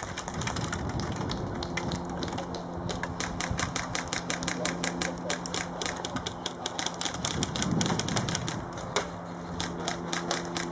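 Airsoft guns firing: a rapid, irregular run of sharp clicks and snaps, several a second and thickest in the middle, over a faint steady low hum.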